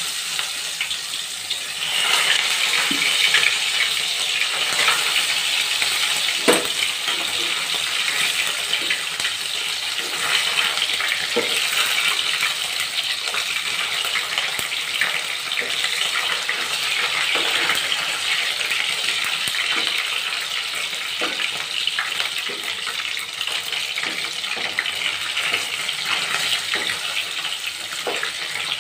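Pieces of fish frying in hot oil in a pan: a steady sizzle with crackling, growing louder about two seconds in as the fish goes in.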